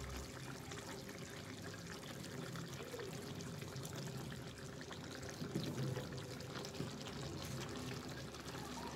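Tomato-based chicken stew simmering in a frying pan on a hot plate: a faint, steady bubbling.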